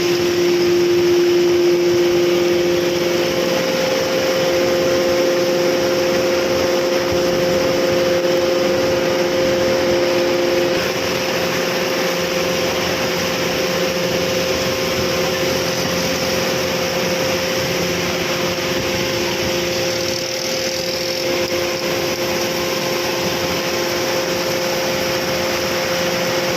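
A steady mechanical hum with several constant tones over a loud, even hiss, dropping slightly in level about eleven seconds in.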